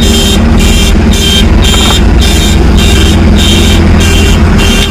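A vehicle engine running close by with a repeating electronic beeper over it, about two high beeps a second.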